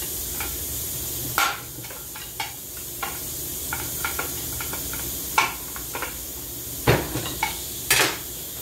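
Irregular metallic clicks and knocks of a hand tool and loose parts inside an automatic transmission case as an internal part is worked free, the two loudest knocks near the end. A steady low hum and hiss of the shop runs underneath.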